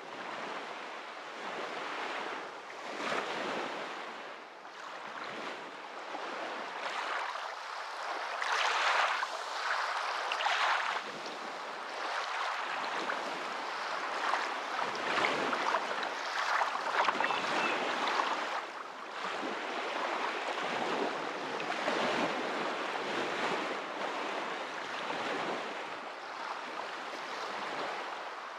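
Continuous rushing water that swells and eases every few seconds, with no other sound over it.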